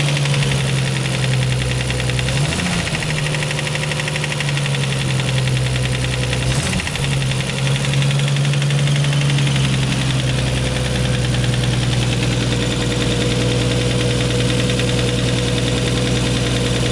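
Nissan RB26 twin-turbo inline-six engine running at idle with a loud, rapid clacking, with two brief blips in engine speed about 3 and 7 seconds in. The owner is unsure of the cause and suspects a spun bearing, piston slap or loud injectors.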